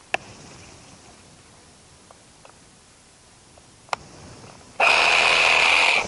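Two sharp clicks about four seconds apart, then a battery-powered saw switching on abruptly near the end and running at a steady full speed with a high whine.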